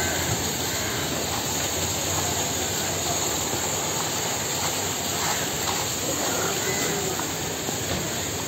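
Steady hissing street background noise, with faint voices now and then.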